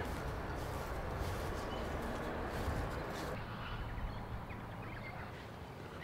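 Outdoor background of a steady low rumble on the microphone, with a few faint bird chirps about halfway through.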